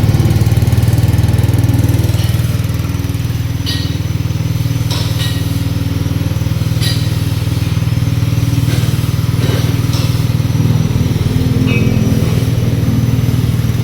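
Small engine driving a coconut-milk pressing machine, running steadily at throttle, with a few short sharp clicks or knocks every second or two.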